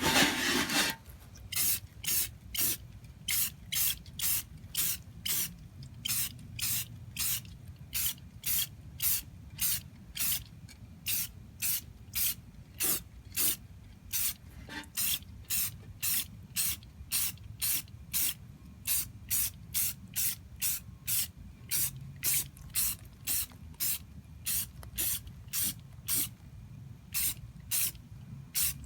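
Aerosol spray paint can spraying in short, even bursts, about two a second, as paint is laid on in light passes.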